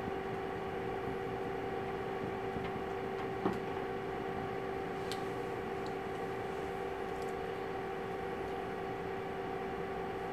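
Steady room hum of a classroom's ventilation or equipment, with two constant tones over an even noise, and a single light knock about three and a half seconds in.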